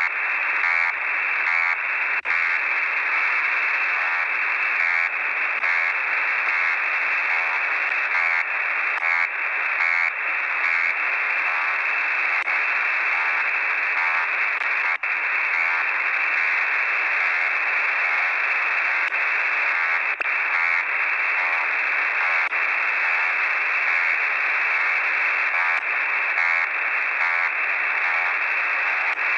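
Shortwave radio static from a web SDR receiver in upper-sideband mode: a steady, band-limited hiss with a faint, regularly repeating pulse in it. This is a weak signal on 17730 kHz, one of the frequencies of the new Russian 'Buzzer' transmissions, which the uploader takes to be related to the new Buzzer.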